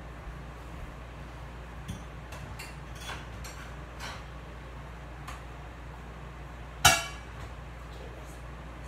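Kitchenware being handled: scattered light clicks and knocks, then one loud ringing clink about seven seconds in, like a dish or glass striking another.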